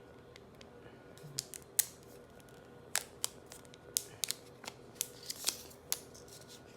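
Irregular sharp clicks and snaps of the box and packaging being handled and pulled apart, about a dozen over a few seconds, starting about a second and a half in.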